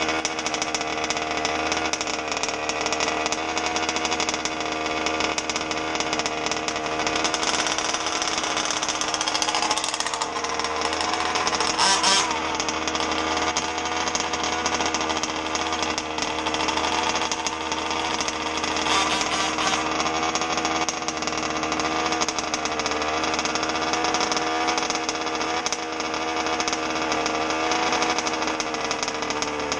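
Two-stroke gas engine of a 1/5-scale MCD RC car running at a fairly steady speed, with brief louder, hissier spells about eight to twelve seconds in and again near nineteen seconds. The engine has a misfire.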